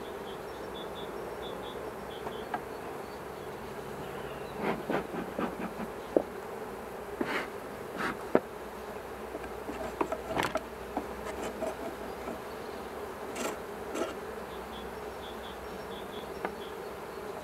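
Honeybee colony humming steadily in an open hive, with scattered short clicks and knocks through the middle stretch.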